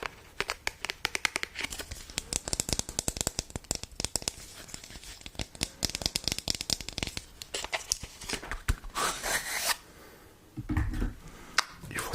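Close-miked crinkling and crackling handling sounds made up of many quick clicks. About nine seconds in there is a louder rustling stretch, and a soft low thump comes near the end.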